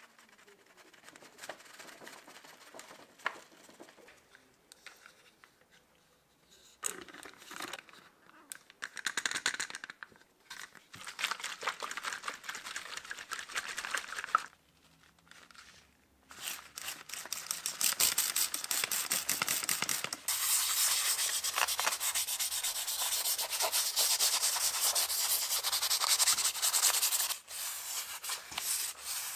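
Faint pouring of powder into a plastic bottle, then a spray bottle of liquid being shaken in short bursts. Then comes a long stretch of fast, steady rubbing and scrubbing on the sugar grinder's cast metal part, the loudest sound here.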